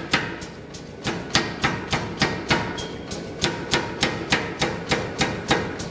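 Air-driven 75-pound power hammer ram striking a bar of hot iron on the dies, about three blows a second, with a short pause about a second in before the blows resume.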